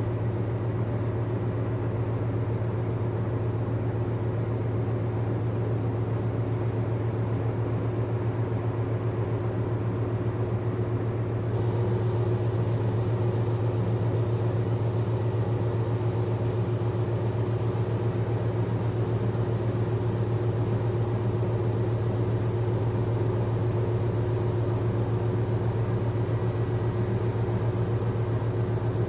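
Low, steady drone of a large container ship's diesel machinery under way, with a faint hiss over it. It grows slightly louder about a third of the way in.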